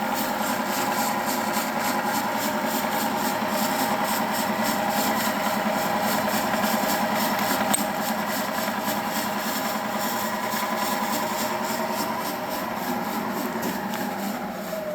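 Wells Index 860 milling machine running with its vertical spindle turning and the quill power feed engaged: the 2 horsepower variable-speed drive runs steadily with a mix of tones, then tapers off over the last few seconds.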